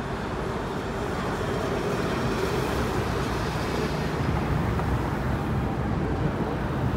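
W-class tram passing close along the street, its running noise and wheels on the rails mixed with road traffic, growing gradually louder over the first few seconds.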